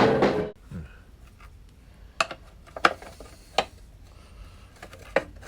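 Rock guitar music cuts off about half a second in. Then come a few separate sharp metallic clinks, spaced well apart, as hand tools knock against the metal headlight cage and its stuck bolts.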